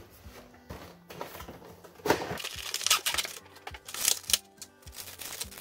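Clear plastic packaging and a cardboard box rustling and crinkling as a model passenger car is unpacked, with a few louder crinkles between about two and four and a half seconds in. Faint background music underneath.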